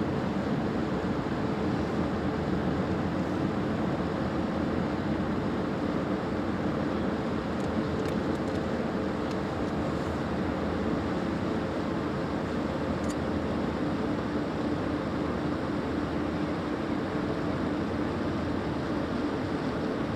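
Steady low hum of the cruise ship Arcadia's machinery as she passes close by, a constant rumble with a few steady tones in it.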